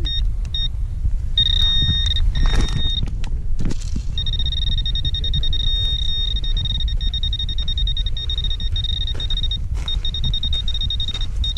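Handheld metal-detecting pinpointer sounding its high-pitched alert tone over a buried target: a few short beeps at first, then a long steady tone from about four seconds in with a brief break near the end. A low wind rumble on the microphone runs underneath.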